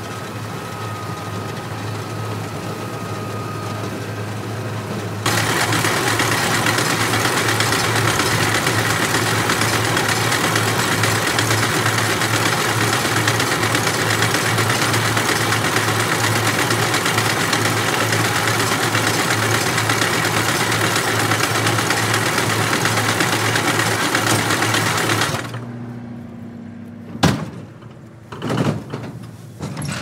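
Gehl 1475 round baler running behind its tractor, with a steady mechanical clatter over the tractor's engine hum; the noise gets louder about five seconds in. Near the end the running noise drops away and a few sharp knocks and clunks follow.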